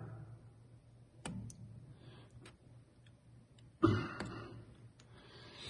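Light metallic clicks and taps as a small brass ring is pushed onto a turned part held in a lathe chuck to test its press fit, with a louder short scrape about four seconds in. A faint low steady hum runs underneath.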